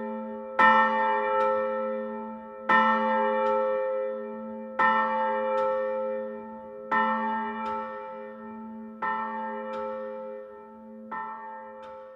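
A single church bell tolling, six strokes about two seconds apart, each ringing on and followed by a lighter second stroke a moment later. The strokes grow gradually fainter.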